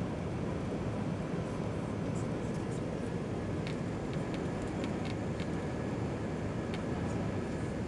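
Steady engine and airflow noise inside the cabin of an Airbus airliner climbing out after takeoff, with a few faint light clicks.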